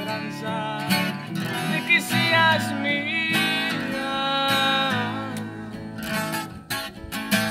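Twelve-string acoustic guitar strummed and picked as song accompaniment, with a young man's voice singing a long held line through the middle.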